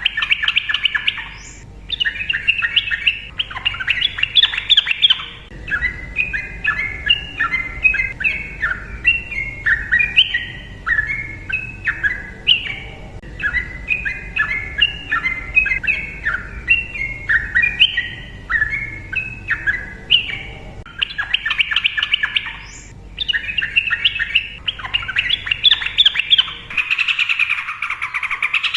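Sooty-headed bulbul (trucukan) singing a long, unbroken song, loud and busy, with a long run of short notes repeated about two a second. The sound changes abruptly near the end, as if a different stretch of recording begins.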